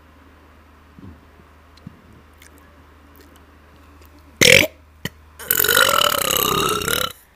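A person burping: a short, sharp, loud burp about four and a half seconds in, then a long drawn-out burp lasting about a second and a half whose pitch wavers.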